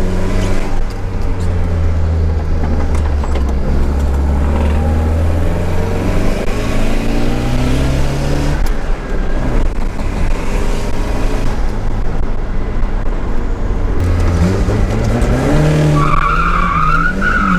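Nissan 200SX S13's CA18DET turbocharged four-cylinder engine pulling hard, its pitch climbing under acceleration. The climb breaks off about eight and a half seconds in, as at a gear change, then rises again. A high, wavering squeal joins near the end.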